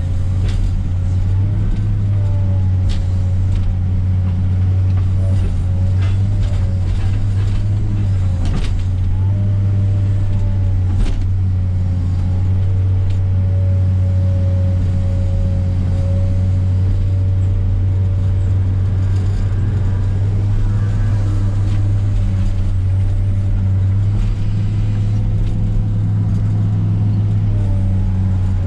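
Heavy diesel equipment engine running steadily under work, with a wavering mid-pitched whine over the low hum and scattered sharp knocks and cracks.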